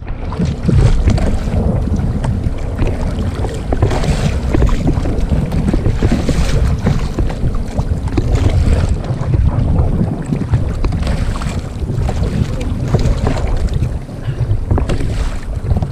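Wind buffeting the camera microphone in gusts, mixed with choppy sea water splashing against a kayak's hull.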